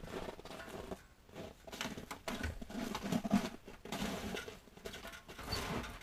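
Footsteps in snow, an uneven run of soft steps.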